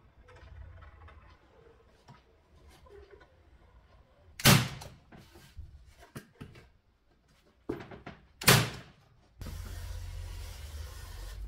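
Pneumatic nail gun firing into MDF: two sharp shots about four seconds apart, with a smaller knock just before the second, amid faint handling sounds. A steady low noise comes in near the end.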